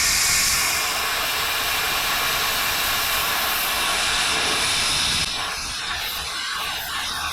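Plasma cutter hissing steadily as it cuts steel plate, dropping to a quieter, rougher hiss about five seconds in.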